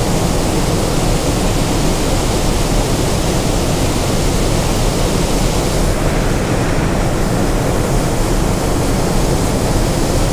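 Water pouring over a concrete dam spillway and churning in the pool below: a loud, steady rush.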